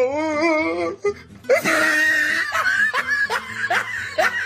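A wavering, held pitched sound for about a second, then laughter over music.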